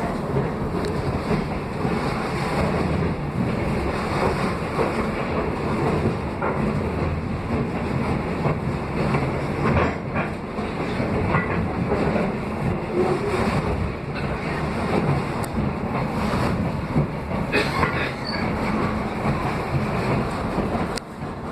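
Train rolling along the track, its wheels clacking over the rail joints with a steady rumble and scattered sharp clicks.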